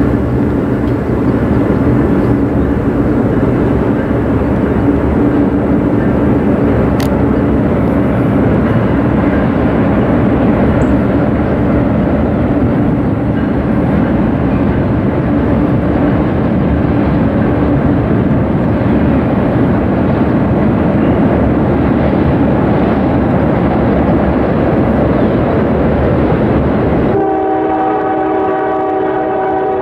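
Norfolk Southern freight train crossing a steel truss bridge: diesel locomotive engines running steadily under the rumble of the cars on the rails. About three seconds before the end the rumble drops away and a locomotive air horn sounds a held chord.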